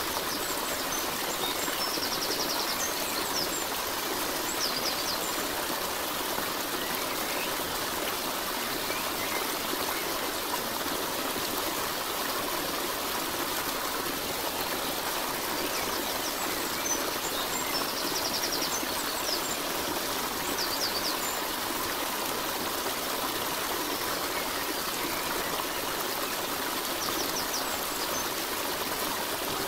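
A stream running steadily, with a few faint, short high chirps now and then.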